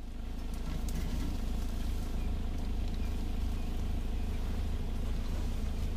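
Open safari vehicle driving off-road through dense bush: a steady engine and drive rumble, even throughout.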